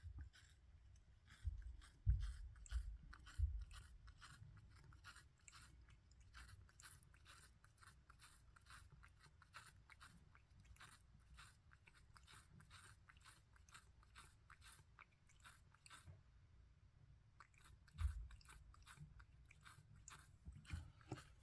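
A pet chewing and crunching a treat: a dense run of small crisp clicks, with a few dull low thumps about two seconds in and again late on.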